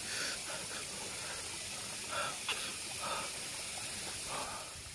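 Short mouth noises of a man eating, chewing and smacking, every second or so over the steady rush of a shallow stream.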